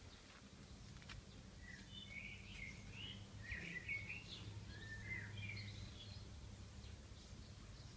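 Faint birdsong: small birds chirping and twittering in quick short notes for a few seconds, over a steady low hum.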